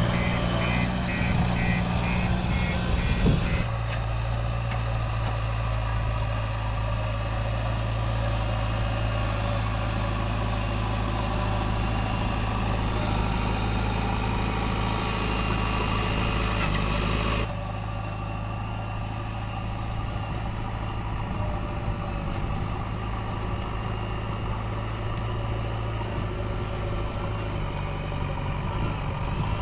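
Diesel engine of a JCB 3DX backhoe loader running steadily at low revs, with a fast repeated beeping over it for the first few seconds. The engine's tone shifts abruptly twice.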